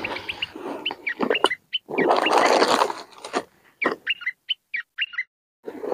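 Small birds chirping in quick runs of short, high calls, with a loud burst of rustling about two seconds in as gear is handled.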